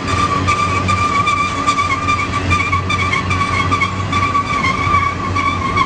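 A passing train's steel wheels squealing against the rail: a steady high-pitched squeal that wavers slightly, over the rolling rumble and rapid clicks of the wheels.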